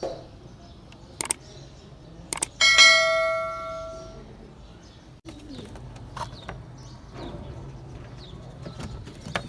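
A metal object struck once, ringing like a small bell and fading over about a second and a half, after a couple of light clicks.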